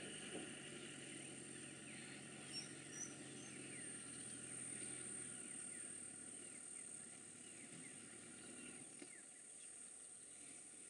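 Faint bush ambience: insects keep up a steady high-pitched drone while birds give many short falling chirps through the middle.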